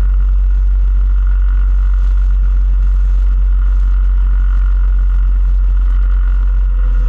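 ATV engine running at a steady pace, an even drone with a heavy deep rumble underneath.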